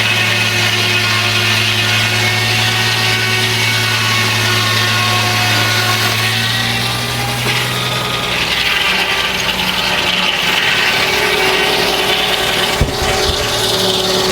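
Frick sawmill's circular head saw running with a steady hum, then biting into a log and cutting off a slab from about eight seconds in, the sound turning harsher and brighter. A single sharp knock comes near the end.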